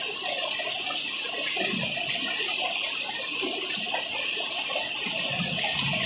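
Heavy rain falling, a steady dense patter of drops with a light tinkling edge.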